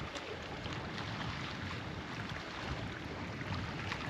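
Steady wind noise on the microphone over the wash of the sea against a rocky shore, with faint scattered ticks.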